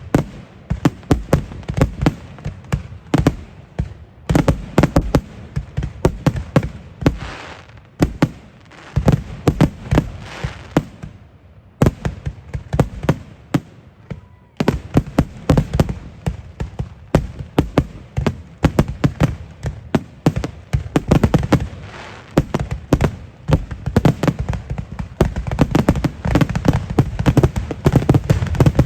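Fireworks display: a rapid, continuous string of shells bursting with sharp bangs and crackles, several a second. It thins briefly twice and is at its densest and loudest near the end.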